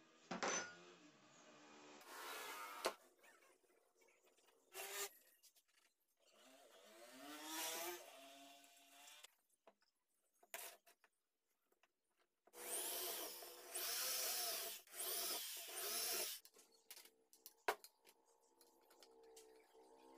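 Workshop tool noise while a bar handle is fitted to a laminated board: short knocks and scrapes of the board and tools, and a power drill running in several bursts, the longest lasting a few seconds past the middle.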